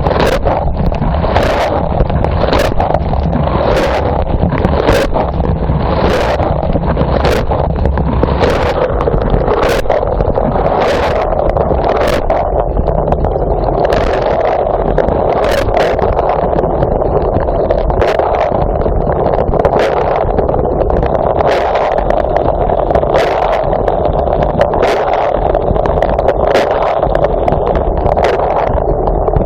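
Dishwasher wash cycle heard from inside the tub: the pump runs steadily and water sprays, and jets from the rotating spray arm dash against the microphone in repeated splashes, about one a second at first and less often later.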